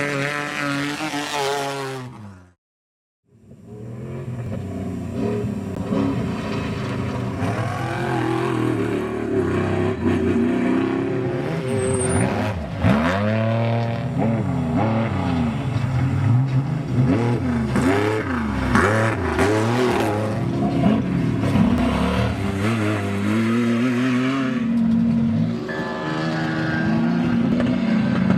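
Off-road race truck engines revving hard, their pitch swinging up and down with throttle and gear changes, with a sharp dip and climb about thirteen seconds in. The sound cuts out completely for about a second near the start.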